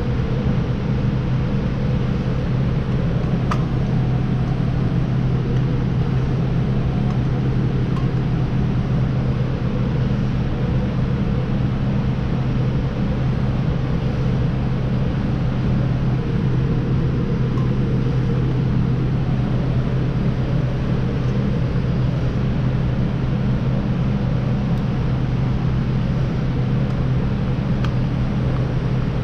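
A steady mechanical drone with a low hum that does not change, with a few faint ticks.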